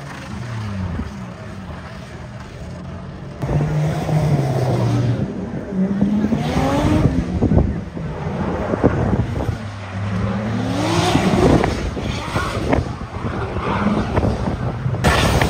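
Drift cars' engines revving, climbing and dropping in pitch again and again. Loudness jumps suddenly about three seconds in.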